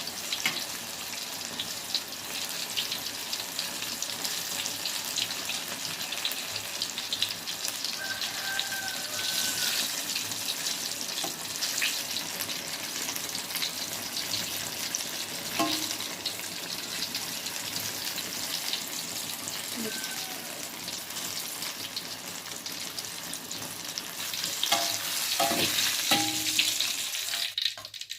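Food frying in hot oil in a pan: a steady sizzle, with a few knocks of a utensil against the pan near the end.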